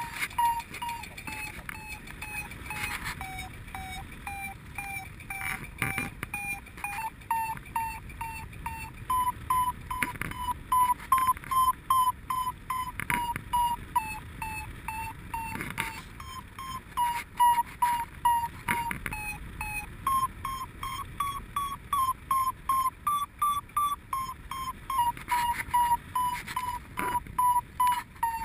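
Paragliding variometer beeping in rapid short pulses, a few a second, the pitch drifting up and down as the climb rate changes. The beeping means the glider is climbing in lift.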